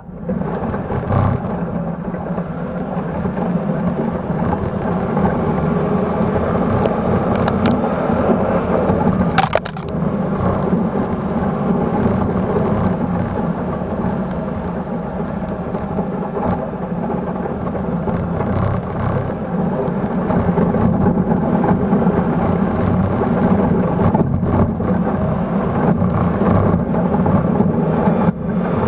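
1996 Suzuki Carry mini truck running under load as its steel plow blade pushes and crushes snow, a steady mix of engine and churning snow. A couple of sharp cracks come between about seven and ten seconds in.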